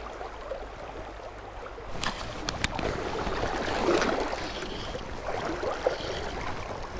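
River water rushing and sloshing close to the microphone around a wading fly angler, louder from about two seconds in as he moves. A few sharp clicks come about two seconds in.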